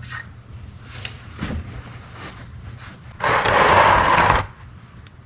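Faint scraping and clicking, then a loud hiss about three seconds in that lasts just over a second and cuts off suddenly.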